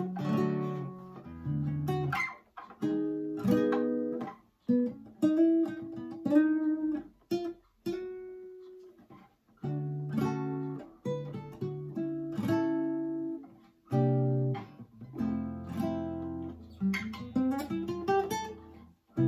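Nylon-string classical guitar (Valencia VC104EBK) strung with freshly fitted Ernie Ball Ernesto Palla black-and-gold ball-end nylon strings, played as a slow run of chords and single notes. Each chord is left to ring and fade, with short pauses between phrases. The player hears the tone as in between nylon and steel strings.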